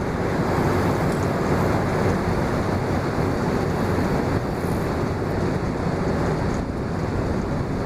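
Steady low engine rumble with wind noise on the microphone, unchanging throughout.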